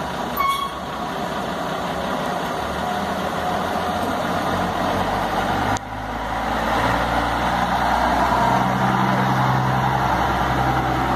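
Diesel engine of an old Mercedes-Benz bus running as it pulls slowly away, getting louder in the second half as the bus drives past close by.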